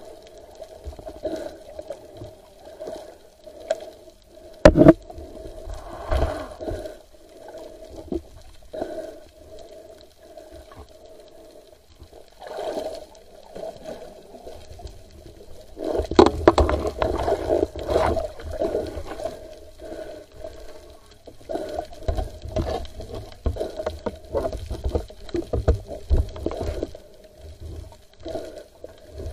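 Underwater sound picked up by a submerged camera: water gurgling and sloshing around it, with irregular knocks, one sharp click about five seconds in, and a steady hum underneath.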